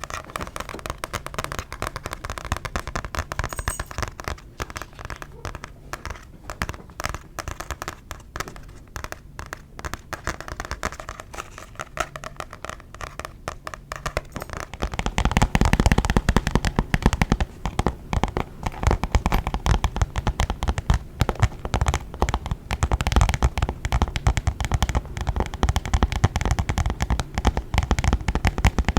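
Fast, continuous ASMR tapping on a book, then, about halfway through, a switch to louder, deeper tapping on a makeup bag.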